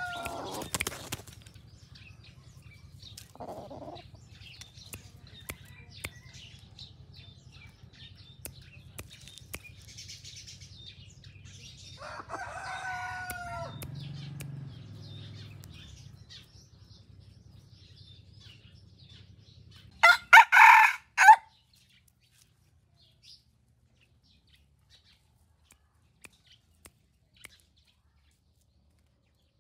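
Red junglefowl-hybrid decoy rooster crowing: short crows falling in pitch, one about halfway through, then two loud short calls about two-thirds of the way in, over a low steady hum.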